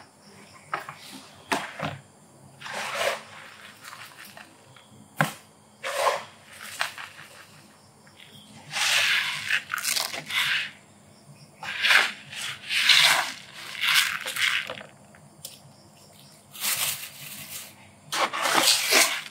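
A slotted litter scoop digging and sifting through granular cat litter in a plastic litter box: a run of gritty scraping and rustling strokes, the longest and loudest between about nine and fifteen seconds in.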